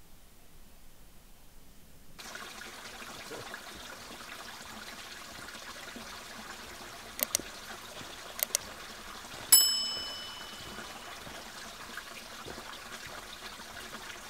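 Subscribe-button animation sound effects: two pairs of quick mouse clicks, then a bright notification-bell ding that rings out and fades, over a steady rushing background noise.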